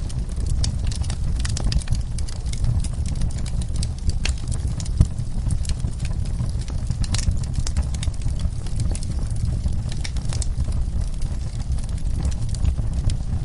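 Wood fire burning in a fireplace, crackling with frequent irregular pops over a steady low rumble, one pop louder than the rest about five seconds in.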